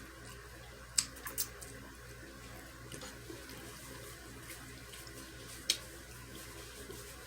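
Quiet eating sounds: a few short sharp mouth clicks or smacks, a cluster about a second in and one more near six seconds, over a steady background hiss.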